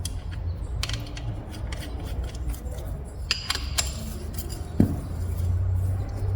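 Hand tools and steel parts clinking and clicking as a pickup's suspension and steering linkage are being taken apart, over a steady low hum.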